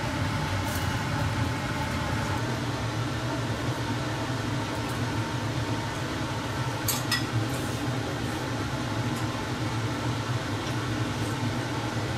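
Kitchen range hood fan running steadily over a gas-stove grill, with a sharp clink of a utensil about seven seconds in.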